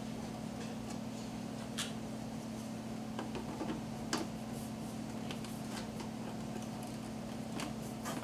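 Scattered light clicks and taps as the plastic parts and foam packing of a coffee maker are handled, over a steady low hum.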